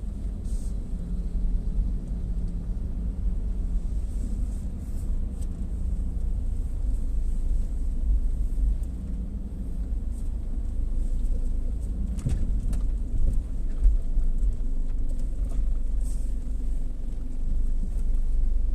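Gas-station car wash running: a steady low rumble, with a few short knocks about twelve and fourteen seconds in.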